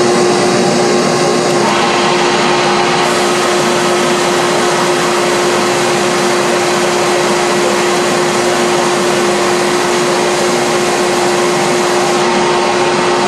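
Shop vacuum and belt sander running together while a small wooden box is held against the sanding belt to flush its sides: loud, steady rushing noise with a steady tone underneath.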